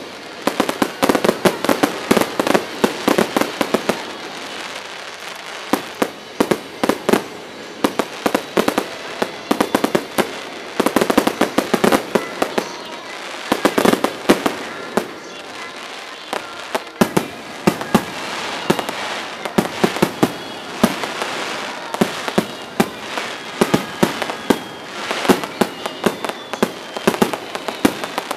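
Aerial fireworks shells bursting in rapid volleys: sharp bangs mixed with crackling, in dense clusters with short lulls between.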